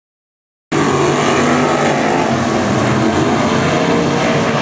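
After a silence of under a second, the 305 cubic-inch V8 engines of a pack of winged RaceSaver sprint cars start running at high revs through a dirt-track turn. The pitch wavers up and down as the drivers work the throttle.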